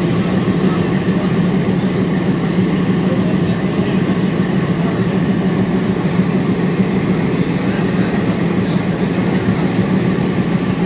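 ALCO diesel locomotive engine idling steadily, a low even hum with no change in speed.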